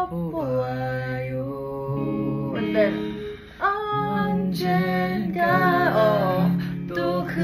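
Guitar accompaniment with a woman singing a slow melody, long held sung notes over sustained chords; the music drops briefly about three and a half seconds in, then resumes.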